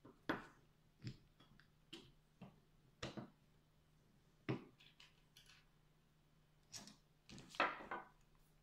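Irregular small clicks and knocks of plastic and metal parts of a Raymarine tillerpilot's drive mechanism being handled and fitted together by hand, with a louder cluster of knocks near the end.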